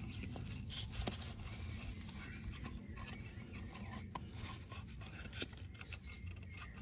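Rubber-gloved fingers rubbing and pressing an O-ring, wet with LHM fluid, into the sphere seat of a Citroën DS rear suspension cylinder: faint scratchy rubbing with a few small clicks, over a steady low hum.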